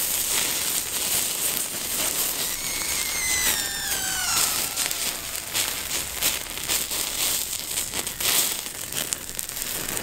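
Wood fire crackling and popping under a spit-roasting chicken, with fat dripping onto the embers and sizzling. A thin whistle sounds about two and a half seconds in and falls in pitch over about two seconds.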